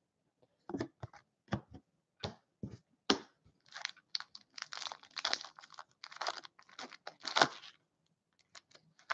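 Stiff cardboard trading cards being flipped through by hand and slid off a stack: a string of irregular clicks and scrapes, busiest in the middle, thinning to a few faint ticks near the end.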